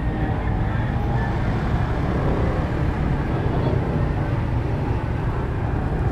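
Motorcycle engines running at low speed in a slow line of bikes, a steady low rumble.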